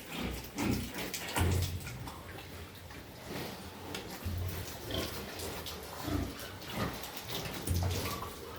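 Pigs grunting: three short, low grunts a few seconds apart, among scattered rustling and knocking in the pen.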